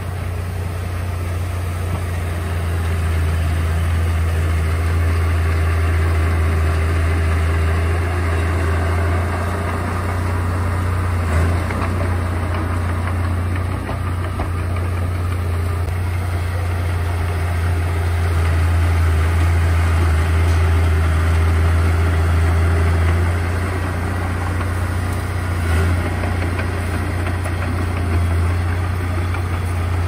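Komatsu D31A bulldozer's diesel engine running steadily with a deep, even hum, swelling slightly in level a couple of times as it works.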